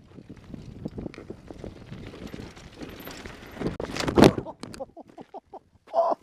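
Downhill mountain bike clattering and rattling over a rocky gravel trail, then a crash: a loud impact about four seconds in as the rider goes off the edge of a berm and hits the gravel, followed by a few small knocks and scrapes.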